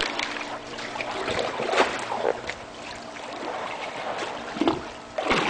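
Swimming-pool water sloshing and lapping in waves under a floating solar cover, set rocking by an earthquake.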